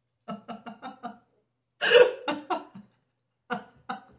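A woman laughing in short, quick bursts, with a louder burst about two seconds in and two more short ones near the end.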